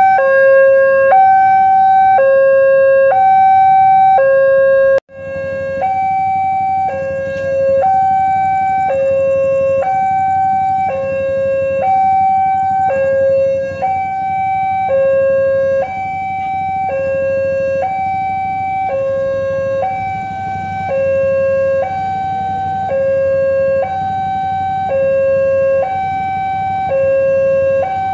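Electronic railway level-crossing alarm sounding its two-tone warning, switching between a lower and a higher tone about once a second. A low rumble from a passing train lies beneath it. The sound cuts out for an instant about five seconds in.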